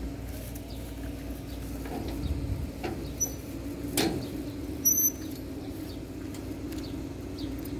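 Outdoor ambience: a steady low hum with scattered faint clicks, and two brief high chirps, one about three seconds in and one about five seconds in.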